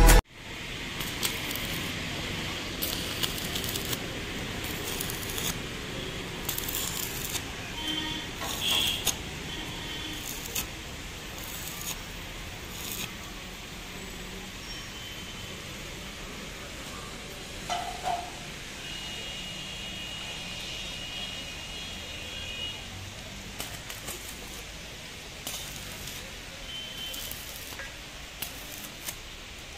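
Building-site sound during steel roof framing: a steady background hiss with scattered light clicks and knocks, and a few brief high chirps.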